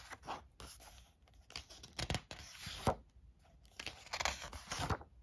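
Pages of a hardcover book being turned one after another: several quick papery swishes and flaps, with a sharp flap about three seconds in.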